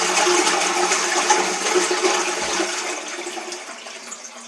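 Toilet flushing: a loud rush of water that gradually dies away as the bowl drains.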